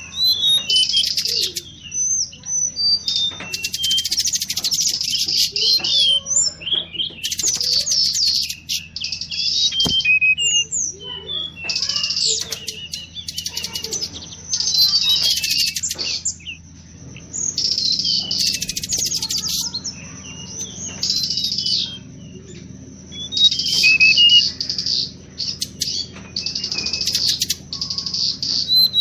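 Lure recording of mangrove blue flycatcher calls: repeated bursts of rapid, high-pitched twittering, each a second or two long, with single chirps and short pauses between them.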